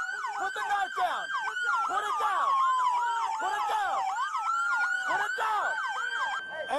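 Several police car sirens sounding at once: a slow wail rising and falling, overlapped by rapid yelping sweeps repeating several times a second.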